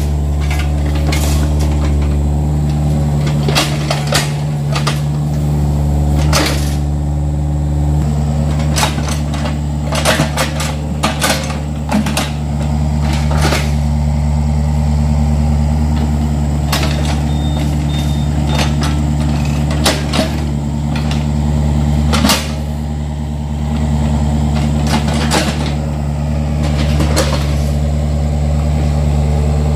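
Yanmar mini excavator's diesel engine running steadily while it digs, with irregular sharp knocks and clanks from the bucket and arm working the soil.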